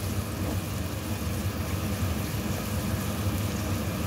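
Chopped onion sizzling in oil in a frying pan as it is sautéed and stirred with a spatula, over a steady low hum.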